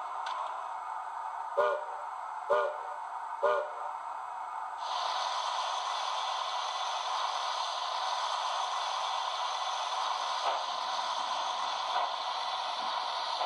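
Sound-decoder steam locomotive effects from a model 2-8-0: three short whistle toots about a second apart, the standard signal for backing up. A steady steam hiss then starts suddenly a few seconds in, with a few faint chuffs as the locomotive runs in reverse.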